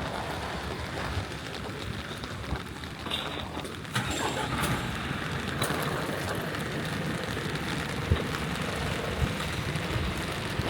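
Steady rain falling on a city street, with a low rumble underneath and scattered drips and small knocks. The rain's hiss grows brighter about four seconds in.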